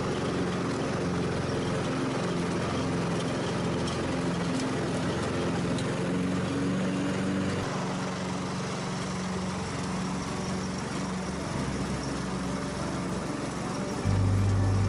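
Craftsman lawn tractor engine running as it tows a plug aerator, its pitch shifting up and down a little, with wind on the microphone. Near the end, a louder, steady low sound starts suddenly.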